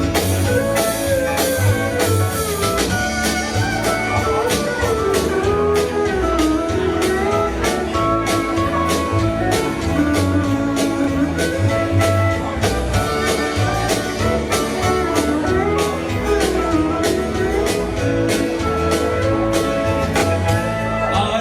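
Live country band playing an instrumental break: a lead guitar picks a melody over bass and a steady drum beat.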